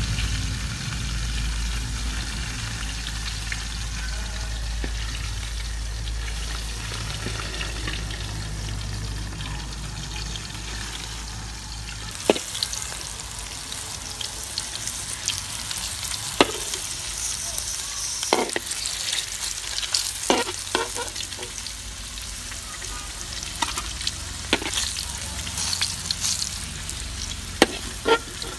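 Small whole fish frying in hot oil in a steel wok, sizzling steadily. From about halfway on, a spatula knocks and scrapes against the wok several times as the fish are stirred and turned.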